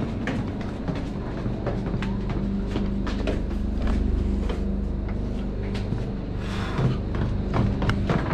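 Steady low machine hum with scattered knocks and clunks.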